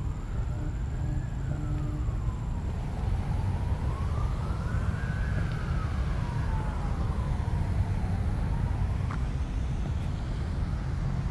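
Emergency-vehicle siren wailing, its pitch slowly rising and falling in cycles of a few seconds, fading out near the end. Under it is a steady low rumble.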